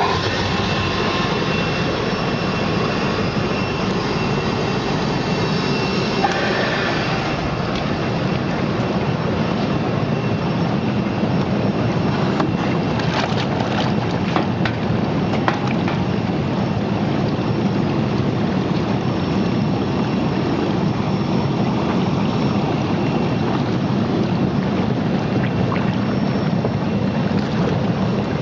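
Bubble-type fish washing machine running, air bubbles churning the water in its washing tank: a steady rushing, bubbling noise, with a few light clicks about halfway through.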